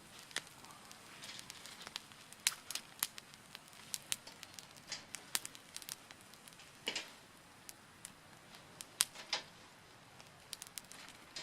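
Small dry wood crackling and snapping in irregular sharp pops, with a short rustle about seven seconds in.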